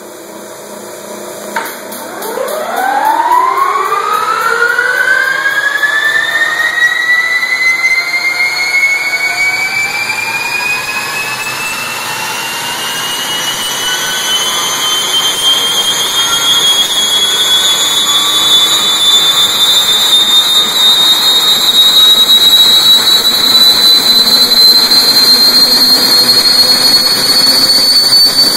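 Lycoming T53 turboshaft engine starting up. After a short click, a whine rises steeply in pitch from about two seconds in and grows loud over a steady rush of air as the engine spools up. It then keeps climbing slowly higher as it accelerates.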